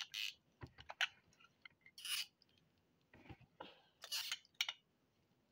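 Faint scattered clicks and rustles of a plastic Demogorgon action figure being handled and its joints posed, with two short hissy sounds about two and four seconds in.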